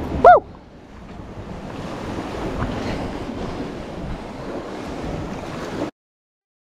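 Wind buffeting the microphone over sea surf washing against the rocks below, after a short loud shout right at the start. The sound cuts out abruptly about six seconds in.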